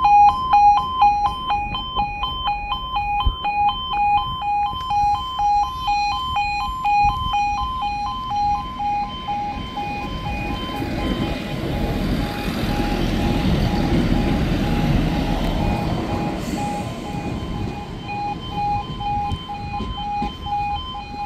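Level crossing warning alarm sounding a rapid, pulsing two-tone yodel throughout, while an East Midlands Railway Class 170 Turbostar diesel unit passes over the crossing, its engine and wheel rumble swelling from about ten seconds in and fading by about seventeen.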